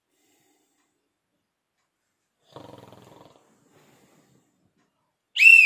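A man snoring: one snore just under a second long about two and a half seconds in, with a fainter breath a second later. Near the end a very loud, brief high-pitched squeal cuts in.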